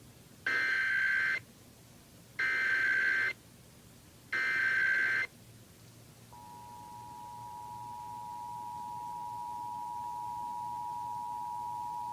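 Emergency Alert System test: three short bursts of the warbling SAME digital header, about two seconds apart. Then, about six seconds in, the steady two-tone EAS attention signal starts and swells a little louder over the next few seconds.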